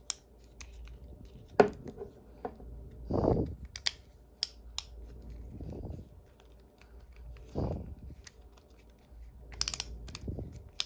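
Metal parts of a Channellock 927 snap ring plier clicking and snapping in the hands as a stubborn part is worked back into the tool, with a few soft rubbing and handling noises between the clicks.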